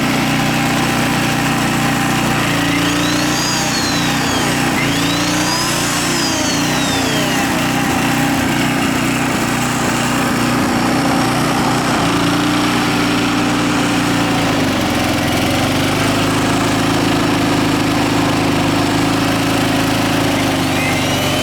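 Small Briggs & Stratton engine on a 1,750-watt Coleman portable generator running under heavy electrical load, bogging down as the load uses all the power it has. A higher whine rises and falls twice early on, and the engine's pitch drops about 14 seconds in.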